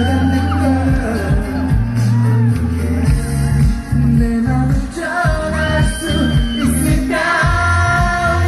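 Male pop singer singing a ballad live into a microphone over an amplified instrumental backing, with a steady bass line under the melody.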